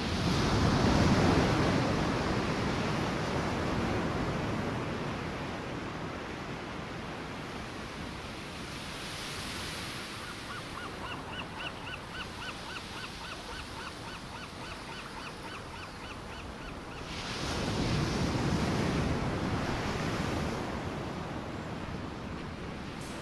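Ocean surf breaking and washing over a rocky shore, swelling louder twice, near the start and again later. In the middle, a rapid run of short, high-pitched calls repeats several times a second for about six seconds.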